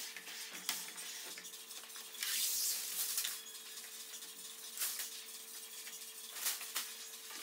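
Work noises of window film being handled and squeegeed onto glass: scattered light scrapes and clicks, with a louder rustle of plastic sheet a couple of seconds in. A faint steady hum runs underneath.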